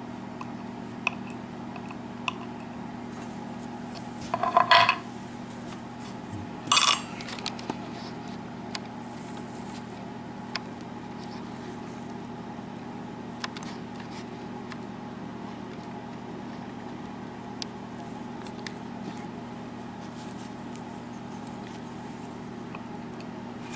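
Small metal lock parts and tools being handled: scattered light clicks and two louder ringing metallic clinks, about four and a half and seven seconds in, over a steady low hum.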